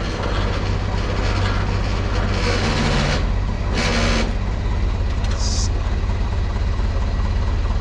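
Forklift engine running steadily while it drags a heavy machine along on skates. Rough scraping noise rises twice in the middle, and a brief high squeal comes about five seconds in.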